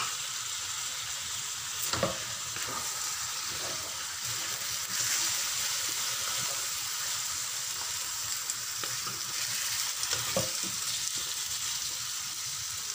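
Chicken pieces and potato chunks sizzling steadily in hot oil in a frying pan while being stirred with a wooden spatula. Two sharp knocks are heard, about two seconds in and again after ten seconds.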